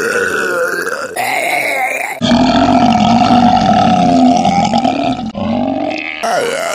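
A person burping loudly, several drawn-out burps one after another; the longest and loudest is a deep burp of about three seconds, starting a little after two seconds in.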